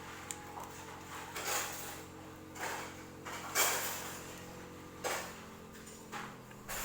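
Noodle soup being eaten: short slurps and mouth noises about once a second, over a steady low hum.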